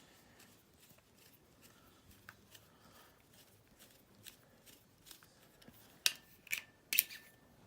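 Lightsaber being handled out of its plastic packaging: scattered small clicks and rustles, with a few sharper clicks about six and seven seconds in.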